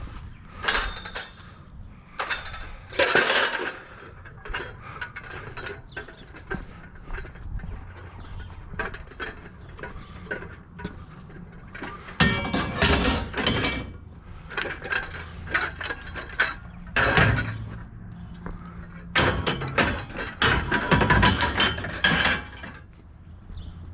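Tangled scrap metal, a lawnmower among it, clanking, clinking and scraping as it is dragged out and dropped, with loud spells of clatter about 3 seconds in and again several times in the second half.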